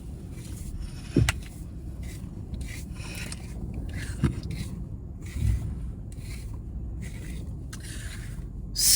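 Strong gusty wind: a steady low rumble with gusts that swell and fade every second or so, and a few dull thumps.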